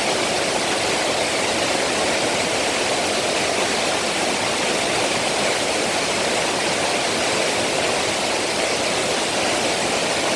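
Water pouring down a sliding waterfall over a slope of rock, in a mountain stream running high after heavy summer rain: a steady, full rushing.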